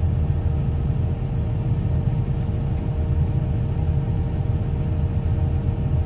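Excavator's diesel engine idling steadily, heard from inside the cab as a constant low rumble with a faint steady whine above it.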